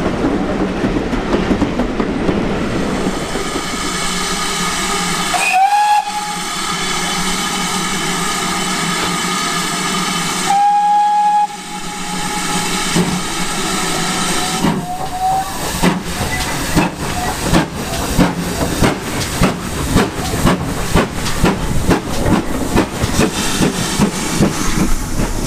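Steam railway sounds: a train rumbling along the platform, then steam hissing and a steam whistle sounding, two short blasts and one longer steady blast in the middle. From about two thirds of the way through, the tank locomotive 5199 pulls away with regular exhaust beats, about two a second and quickening slightly.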